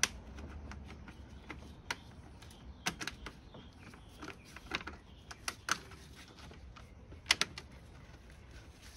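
Irregular clicks and knocks as a replacement cooling fan assembly is wiggled into its mounting slots behind the radiator. There are about eight sharp clicks, spaced unevenly.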